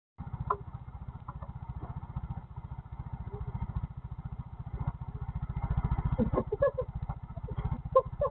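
Motor scooter engine idling with a steady, rapid putter, picked up by a CCTV camera's microphone.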